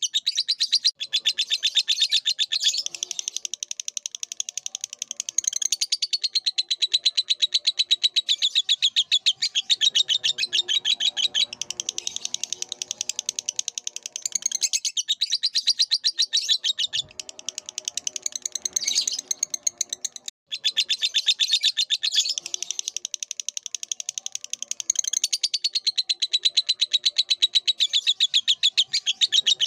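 Lovebird chattering in a long, rapid, almost unbroken trill of high notes, the extended 'ngekek' song used as masteran for training other songbirds. It breaks off briefly about 20 seconds in, then carries on.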